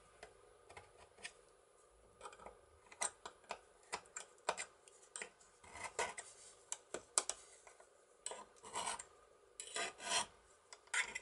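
A scriber scratching lines onto a piece of sheet metal in short, irregular strokes with brief pauses: the outline of a lock pick being marked out for cutting.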